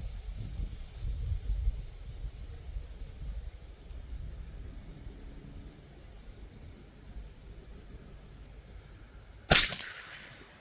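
A single .22 LR rifle shot near the end, a sharp crack with a short decaying tail. Under it runs a steady high insect drone, with wind rumbling on the microphone in the first half.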